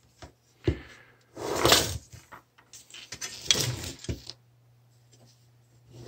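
Handling noises: knocks, rattles and scrapes of sheet-metal boiler water-feeder enclosures being moved about and set down on a workbench. The loudest clatters come a little under two seconds in and again about three and a half seconds in.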